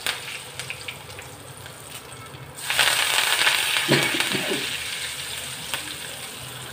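Hot sesame oil sizzling around curry leaves and dried red chillies, then a sudden louder burst of sizzling about two and a half seconds in as ginger-garlic paste hits the oil and froths up, slowly easing off after.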